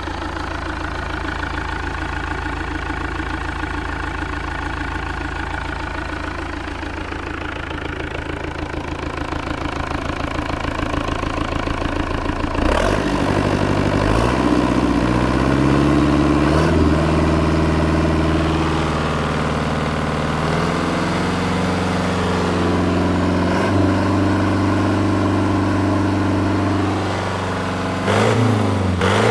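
Yanmar 4LHA-STP four-cylinder turbocharged marine diesel running on a test stand: idling steadily, then about halfway through revved up and held at several higher speeds, the note stepping up and down, with another rise near the end. Cooling water splashes from the wet exhaust outlet into a tub.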